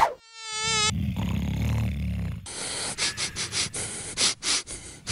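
Cartoon fly buzzing sound effect: a low buzz that stops and starts, with a short wobbling tone near the start and a run of short hissy pulses in the second half.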